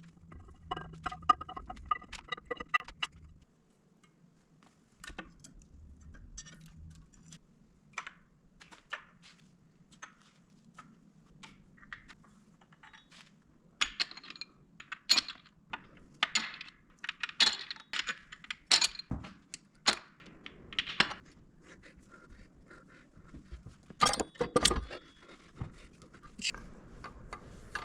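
Metal tools and engine parts clinking and knocking during hands-on disassembly of a Cummins 12-valve diesel engine. There is a brief whirring with repeated tones in the first three seconds, then irregular clinks that come thick and fast in the middle, and a heavier knock a few seconds before the end.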